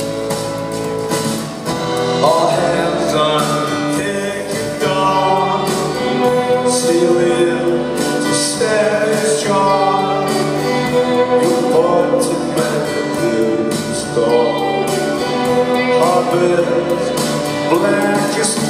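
Rock band playing live: a male lead singer over electric guitars, bass and drums.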